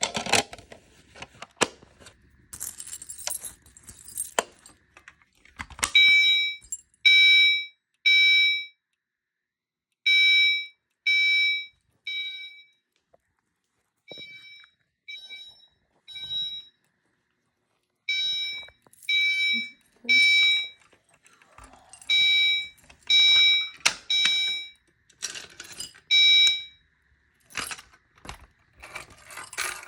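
Gentex GEC3 fire alarm chime sounding the Temporal Code 3 evacuation pattern: three chime tones about a second apart, a pause, then the three again. The pattern starts about six seconds in. Clicks and knocks are heard before it starts and near the end.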